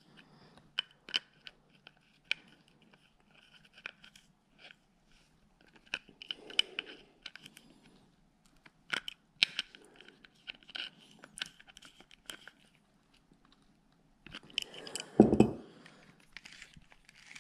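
Small irregular clicks and ticks from a Shimano Curado DC baitcasting reel's parts being handled and a threaded cap being screwed on by hand, with a louder knock about fifteen seconds in.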